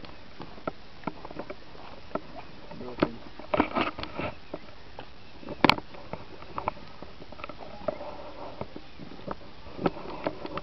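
Irregular scuffs and clicks of a handheld camera being carried on foot over dry, straw-strewn ground, the sharpest click a little over halfway through.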